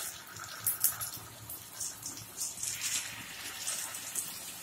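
Pieces of rohu fish, rubbed with salt and turmeric, sizzling as they are laid into hot mustard oil in a kadai, with a few sharp pops of spitting oil about a second in.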